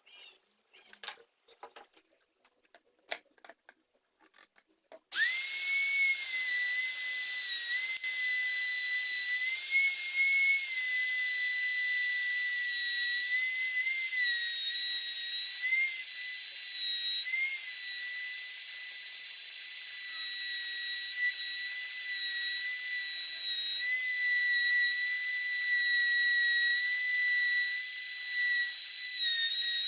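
A few light clicks and knocks, then about five seconds in a high-speed power tool motor starts and runs with a steady high-pitched whine, its pitch dipping slightly now and then as it takes load.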